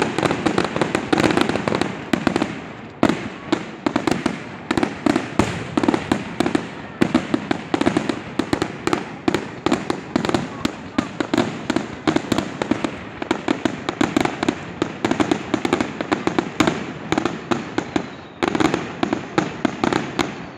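Fireworks display: a dense, continuous barrage of bangs and crackling explosions, several a second. There is a brief lull about eighteen seconds in, and then the barrage resumes.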